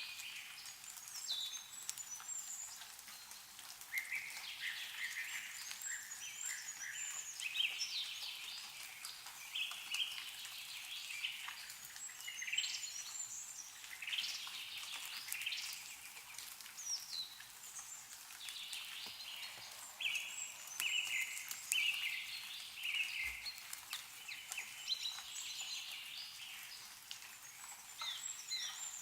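Several small songbirds chirping and trilling almost without pause, overlapping one another, with scattered light ticks of meltwater dripping from snowy trees.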